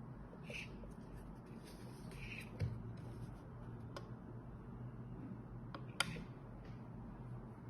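Near-quiet room tone with a low hum and a few faint, sharp clicks and taps, the clearest about six seconds in.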